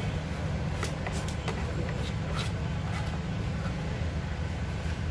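Knife cutting and scraping the foam padding of a motorcycle seat: a few soft scrapes and taps over a steady low rumble.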